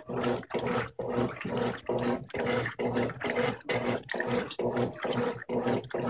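Electrolux 16 kg top-load washer agitating a load of blankets at the high water level: the agitator motor hums and the water churns in regular strokes about twice a second. This vigorous agitation is, according to the owner, a normal trait of this washer at high level, not a fault.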